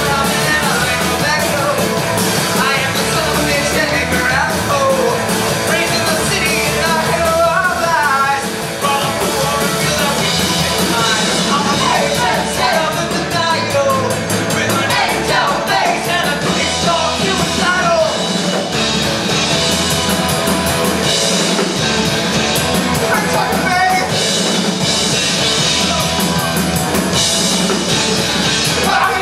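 Live punk rock band playing loud and continuous, with electric guitars and a drum kit, and singing at times.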